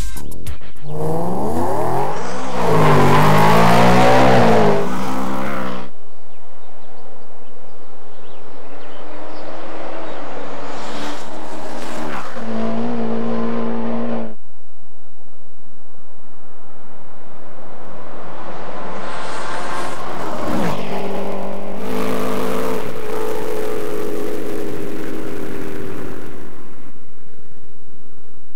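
BMW M3 E90 Filin Edition's V8 launching hard and accelerating at full throttle, the engine note climbing and dropping back at each gear change. Later the same engine is heard from further down the track, building again and sweeping past at high speed.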